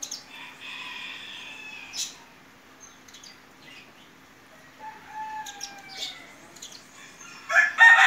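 A rooster crowing loudly near the end, after fainter bird calls about a second in and a falling call around five seconds in. A faint steady hum lies underneath.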